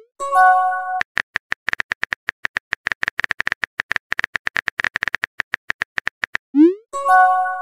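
Phone keyboard typing clicks, several a second, from a texting app. Twice, about half a second in and again near the end, a message-sent sound breaks in: a quick rising swoop followed by a short bright chime of several tones.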